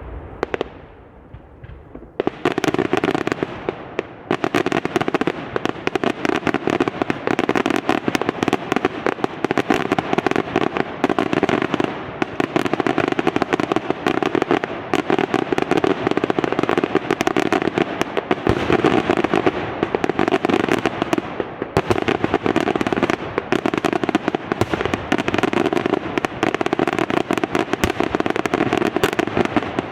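Fireworks going off: a single report, then about two seconds in a dense, unbroken barrage of rapid bangs and crackles that keeps on without a pause.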